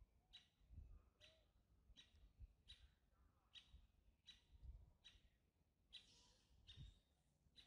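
Faint bird chirping: one short, high chirp repeated evenly, a little more than once a second.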